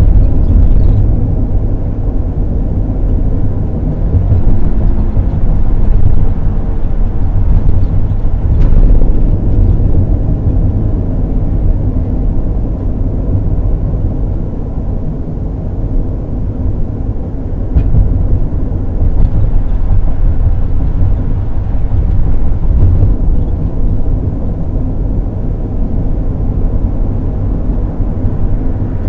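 Road and engine noise inside the cab of a 16-foot moving van cruising on the highway: a steady low rumble, with a couple of faint clicks.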